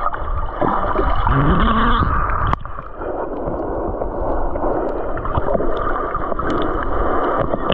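Muffled gurgling and rushing of sea water around an underwater camera, a continuous churning wash with a sharp click about two and a half seconds in.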